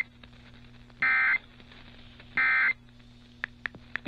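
Emergency alert data tones: two short, identical bursts of warbling electronic tones about a second apart. These are the last two of three end-of-message bursts in a NOAA Weather Radio SAME signal, marking the end of the tornado warning broadcast. A faint steady hum lies beneath, and a few sharp clicks come near the end.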